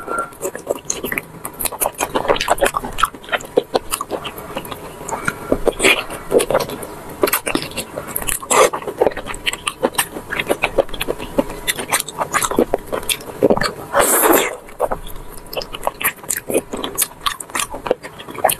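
Close-miked chewing and biting of braised cockscomb oil (pork mesentery fat) in sauce, with a dense run of wet mouth clicks and smacks and a longer sucking sound about fourteen seconds in.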